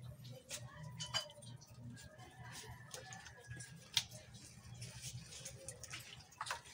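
Raw octopuses being handled in a plastic basin of water: irregular wet squelches, small splashes and soft clicks, with a sharper click about four seconds in. A faint low hum runs underneath.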